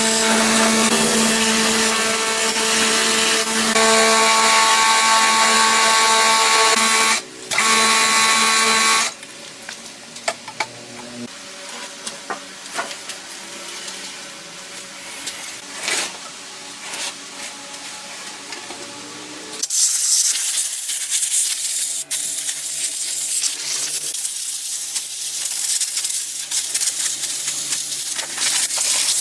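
A power tool's motor running steadily with a fixed whine, stopping about nine seconds in; then quieter scraping and tapping of hand work, and from about twenty seconds on a steady hiss.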